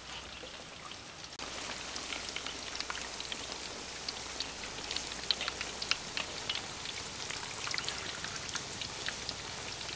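Hot oil sizzling and crackling in a wok as fritters deep-fry: a steady hiss full of small pops, getting louder about a second and a half in.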